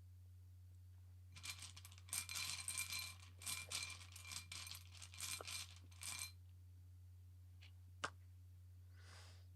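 Small metal tokens clinking and rattling against each other for about five seconds, with a faint metallic ring. A single sharp click follows near the end.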